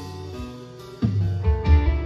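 Live rock band playing: acoustic and electric guitars and bass over drums, the band coming back in louder with low drum hits about a second in.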